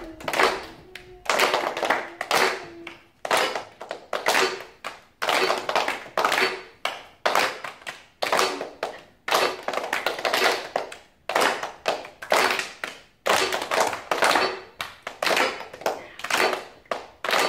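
A group of children clapping their hands together in unison in a repeating rhythm: a short cluster of claps about once a second with brief gaps between. A steady held note sounds under the first few seconds.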